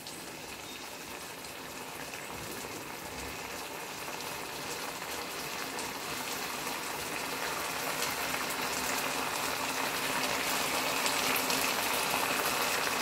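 Ginger garlic sauce sizzling and bubbling around fried fish fillets in a nonstick pan: a dense crackling hiss that grows steadily louder.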